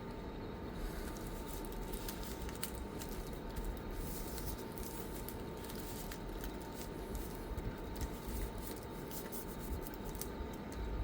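Scattered light clicks and taps of small laptop parts being handled and fitted together during reassembly, over a steady background hum.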